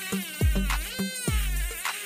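Background electronic music with a beat of deep drum hits and bass.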